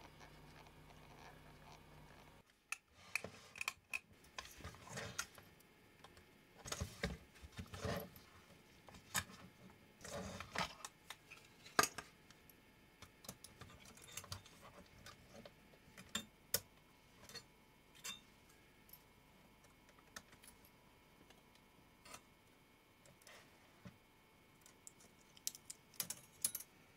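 Irregular clicks, taps and light knocks as the metal tape-mechanism chassis and plastic casing parts of a disassembled miniDV camcorder are handled and set down. A faint low hum is heard for the first couple of seconds, before the clicking begins.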